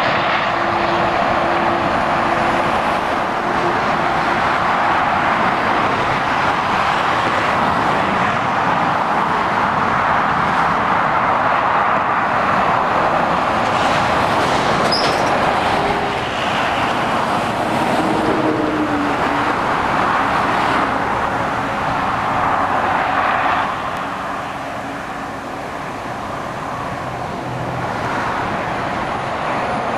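Motorway traffic: articulated lorries and cars driving past, a steady rush of tyre noise with the hum of diesel engines. It eases off for a few seconds near the end.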